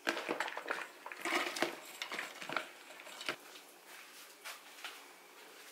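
Kitchenware being handled: a quick run of light clinks and knocks of dishes and pots, busiest in the first three seconds, then only an occasional tap.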